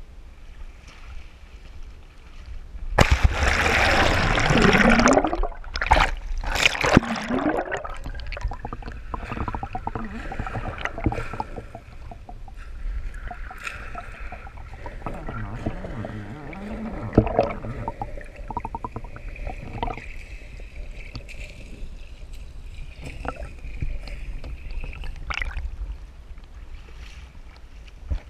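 A waterproof action camera plunges into shallow sea water: a loud splash and rush of water about three seconds in, a few more splashes, then muffled underwater gurgling with scattered clicks.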